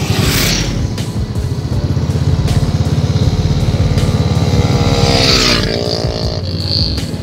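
Motorcycle engine running steadily under way, with a burst of wind noise at the start. About four to six seconds in, a second motorcycle passes close by, its pitch rising and then dropping as it goes past.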